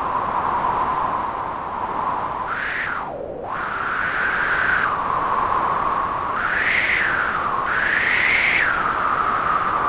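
Synthesized wind: noise from Omnisphere's noise oscillator through a resonant 12 dB low-pass filter, the cutoff swept by hand so a whistling tone in the hiss rises and falls like gusting wind. The tone dips low about three seconds in, then swells up twice near the end.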